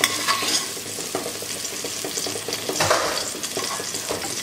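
Okra pieces sizzling in hot oil in a metal kadai, with a perforated slotted ladle scraping and clicking against the pan as they are scooped out. The okra is fried through and no longer slimy.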